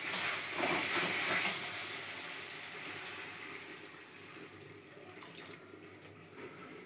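Water poured from a plastic mug into a kadai of fried spice paste on a gas stove, splashing into the pan. It is loudest in the first second and a half, then fades gradually.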